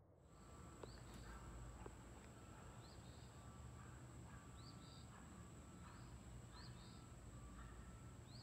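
Faint outdoor ambience: a bird's short rising chirp repeated every second or so over a steady high-pitched tone.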